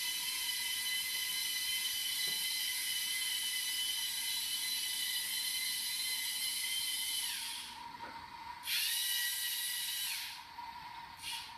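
LEGO Mindstorms EV3 TRACK3R's large motors driving its tracks: a steady high-pitched geared whine that winds down about seven seconds in, runs again for about a second and a half, and gives a short burst near the end.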